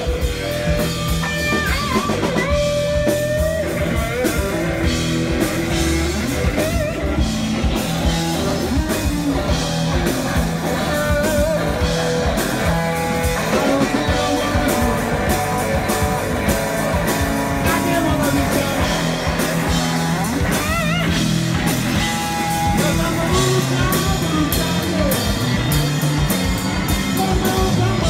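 Live blues band: electric guitar playing lead with bent, sliding notes and wavering vibrato over bass guitar and a drum kit keeping a steady beat.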